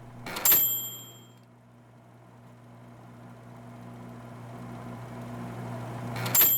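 Typewriter bell dinging twice, about six seconds apart, each ring set off by a short clatter. Beneath, a low steady hum slowly swells in loudness between the two dings.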